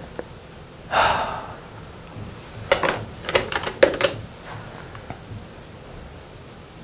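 A short rustle, then several sharp plastic clicks and clacks in quick succession as markers are taken out of and put back into a case of school supplies.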